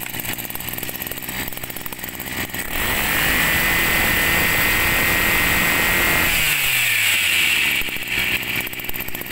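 Maruyama 23cc two-stroke brush cutter engine (32 mm bore) running. It idles, is revved to full throttle about three seconds in and held steady for about three seconds, then drops back to idle with a falling pitch.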